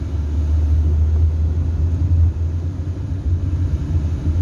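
Inside a car driving on a highway: a steady low rumble of engine and road noise in the cabin.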